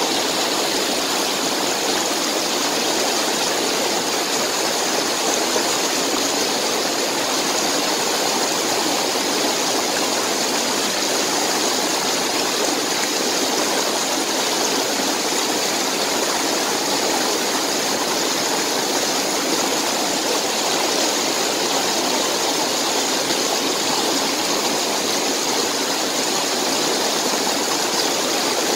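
Shallow, rocky stream flowing steadily: a constant, even rush of water.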